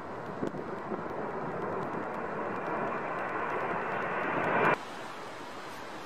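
Twin-engine jet airliner on landing approach, its engine noise growing steadily louder as it comes overhead, then cut off abruptly about four and a half seconds in, leaving a quieter wind noise.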